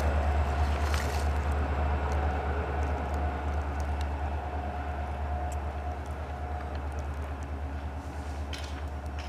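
EMD diesel locomotives rumbling low and steadily as the train moves away, the sound fading all through. A few faint ticks sound over the rumble.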